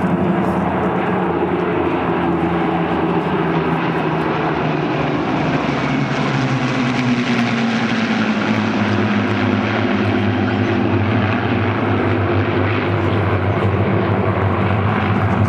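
Formation of Spitfires and Hurricanes flying past close overhead, their Rolls-Royce V12 piston engines making a loud, steady drone. The engine note drops in pitch about halfway through as the formation passes.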